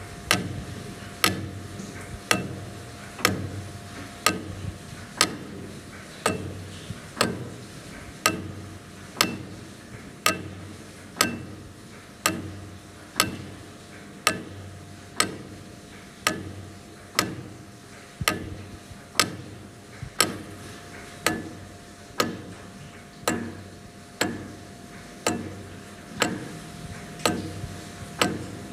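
Clockwork mechanism ticking steadily, about one sharp tick a second, over a faint steady hum.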